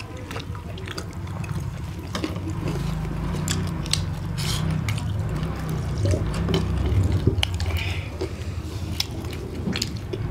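Close-miked eating sounds: wet lip smacks, clicks and chewing as roast chicken is eaten by hand, over a low steady hum.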